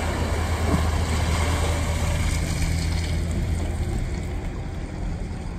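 Pickup truck engine running steadily as it hauls a boat trailer out of the water up a launch ramp, with water washing and draining off the trailer and boat. The sound cuts off suddenly at the end.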